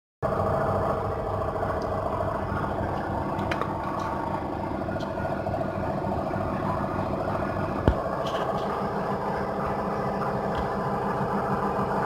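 An engine idling steadily at an even, unchanging speed, with a single sharp click about eight seconds in.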